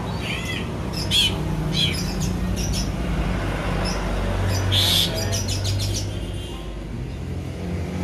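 Sooty-headed bulbul mimicking the calls of an Asian pied starling. It gives a few short arched whistles in the first two seconds, then a loud harsh note about five seconds in, followed by a quick run of short notes.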